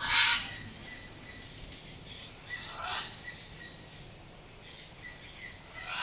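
Macaws squawking harshly: a loud squawk right at the start and a weaker one about three seconds in.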